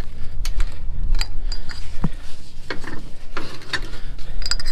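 Irregular metal clicks and rattles from a flatbed trailer's sliding strap winches and bungee hooks as a bungee cord is hooked on across the winches.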